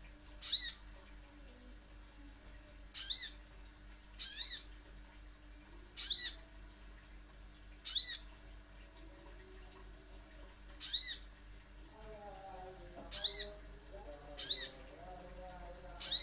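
Sogon sunbird giving short, sharp, high chittering calls, about nine of them spaced one to three seconds apart. A softer, lower warbling joins near the end.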